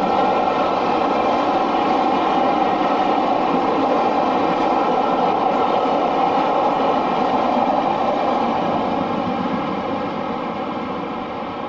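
Steam locomotive hauling a train of Pullman coaches past at speed, its exhaust and the rolling of the coaches making a loud, steady rumble that fades gradually over the last few seconds as the train draws away.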